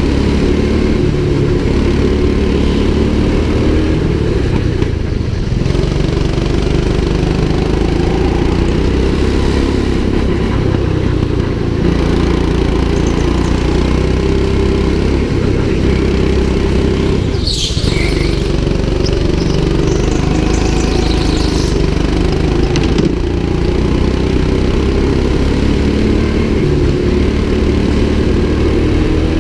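Go-kart engine running hard through laps, close up, its pitch rising and falling as the throttle opens and closes through the corners.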